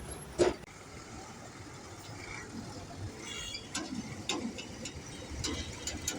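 Road traffic rumbling steadily, with a sharp knock about half a second in and scattered clicks after.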